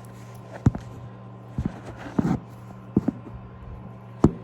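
Scattered sharp knocks and clicks of small objects being handled and set down, about six in all, over a steady low electrical hum.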